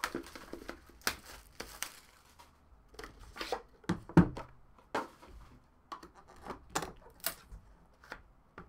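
Plastic shrink-wrap being torn and crinkled off a sealed trading-card box, with cardboard boxes handled in short scrapes and clicks, and a knock as a box is set down on the table about four seconds in.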